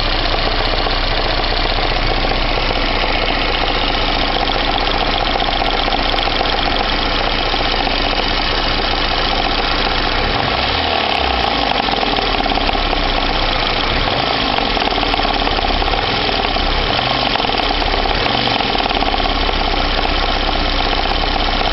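VAZ-2109 (Lada Samara) engine running steadily with a knock that appeared two days ago and does not go away once the engine is warmed up to operating temperature.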